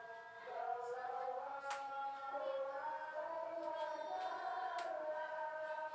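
Singing: a high voice holding long, slowly sliding notes, with a few faint clicks.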